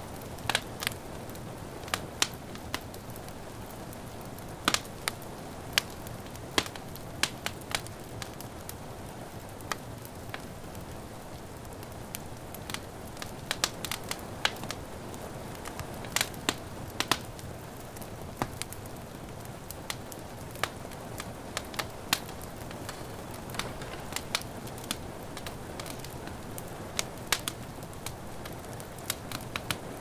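Crackling log fire: irregular sharp pops and snaps, sometimes several a second, over a steady soft hiss of rain.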